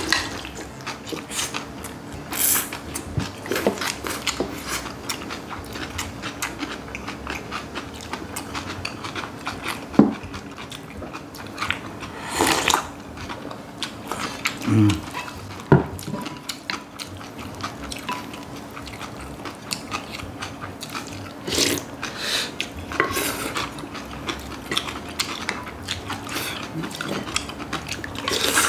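Close-miked eating: crunchy chewing of raw yeolmu (young radish greens) bibimbap, spoons clicking against bowls, and now and then a slurp of cold cucumber soup drunk from the bowl.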